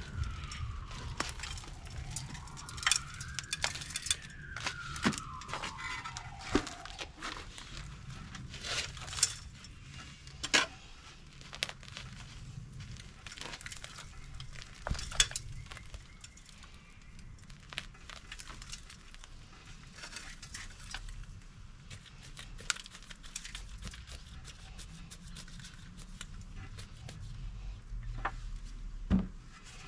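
Hands breaking up and raking through an azalea's root ball: the soil and fine roots crumble and tear with many irregular sharp crackles and clicks, and a louder knock near the end. For the first several seconds a faint tone glides up and down behind it.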